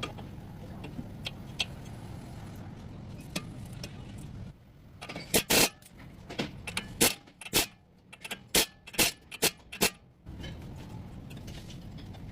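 A steady low rumble, then about five seconds of sharp metallic clicks and knocks, a dozen or so irregular strikes, after which the rumble returns.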